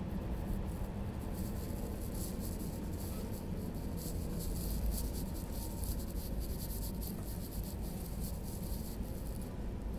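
A train running: a steady low rumble, with a dry crackling hiss over it from about a second in until just before the end.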